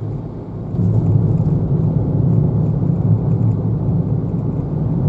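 Road and drivetrain noise inside a Daihatsu Move kei car's cabin while driving: a steady low rumble that gets louder about a second in, as the tyres run over a rough, bumpy road surface.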